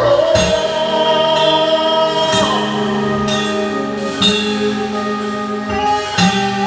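Live band with a male lead singer singing through a PA, backed by keyboard and electric guitars. One long note is held for about the first two seconds.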